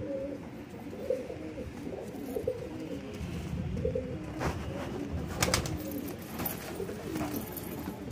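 Domestic pigeons cooing over and over, low wavering coos one after another, with two brief sharp clicks around the middle.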